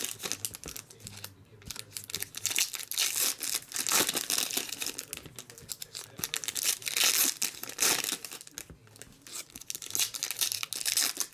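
Foil trading-card pack wrappers crinkling and tearing as packs are ripped open by hand and the empty wrappers tossed aside, in irregular bunches of rustles.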